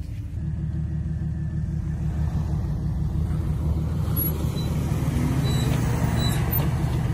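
Off-road vehicle engine running steadily, getting a little louder from about four seconds in, as it works in the snow during a recovery pull.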